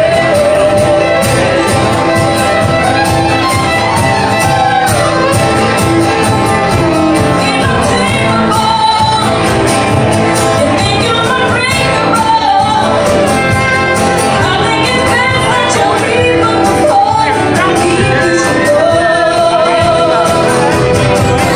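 Live country band: a woman singing lead over acoustic guitar and fiddle.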